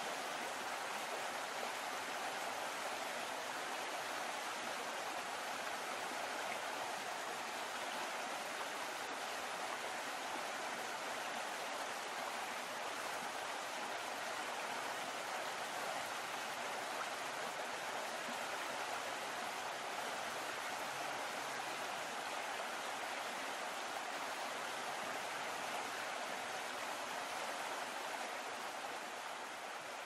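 Steady rushing of water stirred up by a moving boat, churning along the hull and wake: an even, unbroken wash with no engine note.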